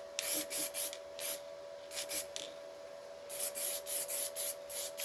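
Short rasping strokes of hand-working on the steel repair piece, in quick runs of three to four a second with a pause about halfway, as the panel is dressed to sit flush. A faint steady hum runs underneath.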